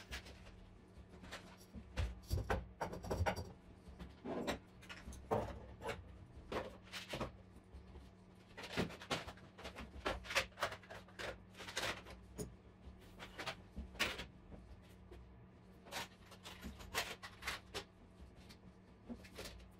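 Irregular knocks and clatter of glass jars, plastic parts bins and boxes being set onto plywood shelves, over a faint steady low hum.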